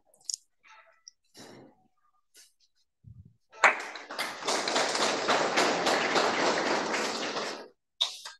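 A few faint taps and knocks, then a round of hand clapping starting about three and a half seconds in and lasting about four seconds.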